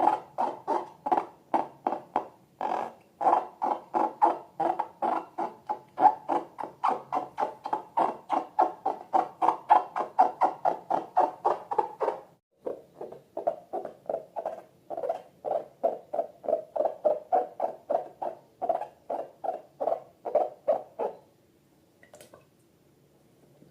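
Slime squished and kneaded by hand in a rapid, even rhythm of about three squishes a second. It pauses briefly about halfway through and stops near the end.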